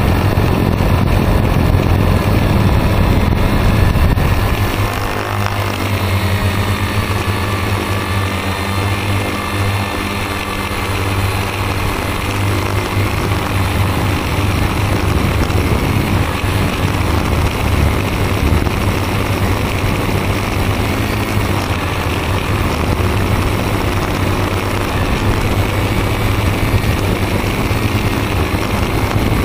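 Multirotor drone's electric motors and propellers whining steadily, heard from the drone's own onboard camera, the pitch wavering slightly as it manoeuvres. A low rumble of wind on the microphone lies underneath and eases off about five seconds in.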